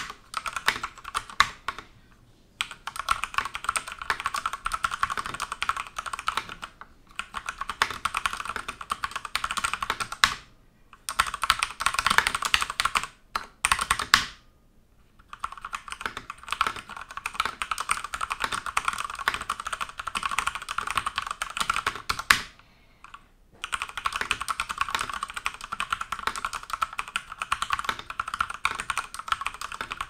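Fast typing on a Durgod Taurus K320 tenkeyless mechanical keyboard with Cherry MX Speed Silver linear switches: dense runs of rapid key clacks, broken by a few short pauses.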